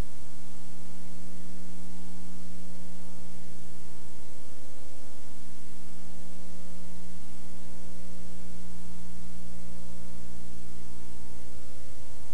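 Steady electrical mains hum with an even hiss: a constant buzz with no other sound over it, the noise floor of an old film transfer rather than any sound from the scene.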